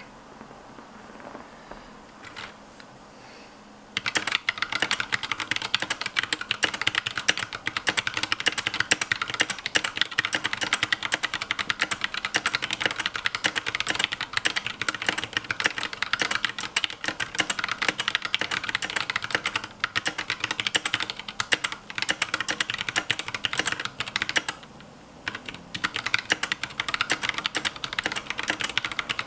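Fast, continuous typing on a Massdrop Alt mechanical keyboard with tactile Zealios V2 65g and Holy Panda switches, a dense stream of key clicks and clacks. It starts about four seconds in after near-quiet, and pauses briefly about three-quarters of the way through before resuming.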